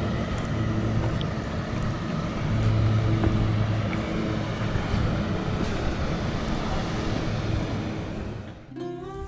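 Wind buffeting the camera microphone outdoors, a steady low rumble with gusty swells. Near the end it drops away and music with a few pitched notes begins.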